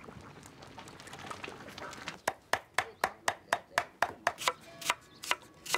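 Knife chopping on a cutting board in quick, even strokes, about four a second, starting about two seconds in.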